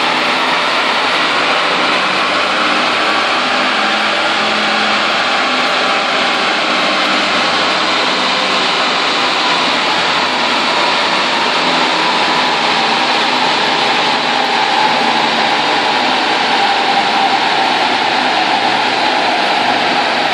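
Renault Megane III CC's 1.5 dCi four-cylinder turbodiesel running hard on a chassis dynamometer, its front wheels spinning the rollers, a steady loud mix of engine, tyre and roller noise.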